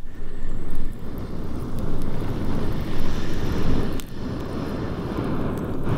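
Long steady rush of breath blown through a zinc waste-pipe blow tube onto hot embers to relight a low campfire, with a brief dip about four seconds in.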